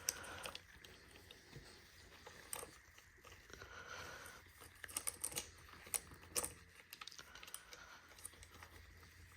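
Faint, scattered clicks and light rattling of a Husqvarna 240 saw chain being handled and fitted around the bar by hand, with a cluster of clicks about halfway through.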